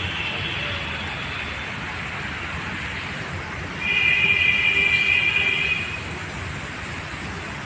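Steady rumble of passing vehicles, with a horn sounding one steady blast of about two seconds near the middle.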